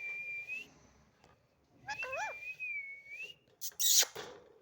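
Pet parrot giving a steady high whistle, then a longer whistle with warbling, gliding notes, followed by a short, loud, harsh squawk near the end.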